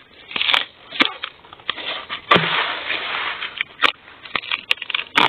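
Machete chopping into the base of a large wild bamboo shoot: a string of sharp chops, with a longer crunching, rustling stretch from about two to three and a half seconds in as the shoot is cut and worked loose.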